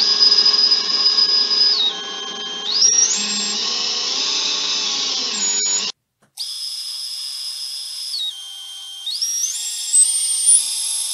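Propless brushless motor of a 3-inch FPV quadcopter spinning up on a bench test, a high steady whine. Its pitch drops, then climbs back in steps as the throttle is changed. It breaks off briefly about six seconds in and resumes, again falling and then stepping up higher. It sounds smooth, a sign of healthy motor bearings.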